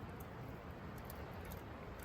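Wood campfire crackling, heard from inside a tent: scattered small sharp pops, a few a second, over a steady low rumble of wind.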